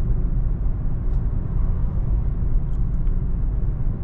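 Steady low rumble inside the cabin of a BMW 330i cruising at road speed: tyre and road noise mixed with the engine running at light load.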